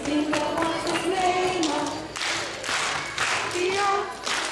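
A group of young children singing a song together, with hand clapping in the middle of the stretch.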